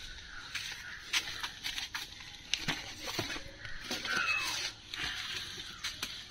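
Rustling of a woven plastic sack and plastic bags, with light knocks as parcels and a foam block are set down on a plastic tarp. A short falling bird chirp comes about four seconds in.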